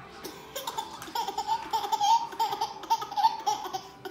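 A toddler laughing hard, starting about half a second in: a long string of short, high-pitched 'ha-ha' bursts, several a second.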